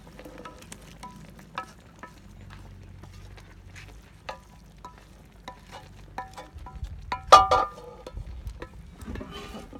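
A wooden spatula scraping and knocking against a metal pan as fried onion masala is scraped out of it, each tap making the pan ring briefly. The loudest is a double clang about seven seconds in.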